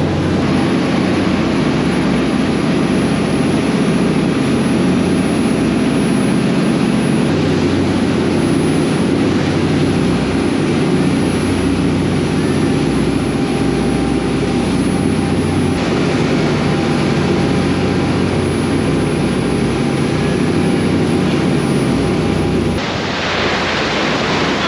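A fishing charter boat running at speed: a steady engine drone with rushing water and wind. Near the end the drone drops away and a brighter hiss of wind and waves takes over.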